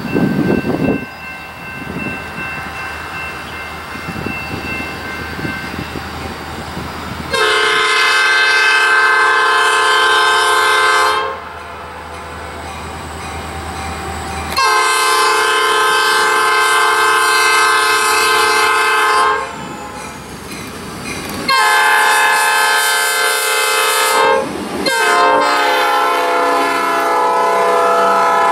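Diesel freight locomotive approaching with a low rumble, then sounding its air horn in the grade-crossing pattern: two long blasts, a short one, and a final long blast. The last blast runs on as the boxcars begin rolling past, wheels clacking over the rail joints.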